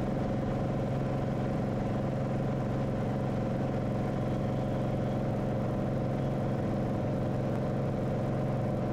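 Cirrus SR22's six-cylinder Continental engine and propeller at climb power, a steady drone heard inside the cabin during the climb-out after takeoff.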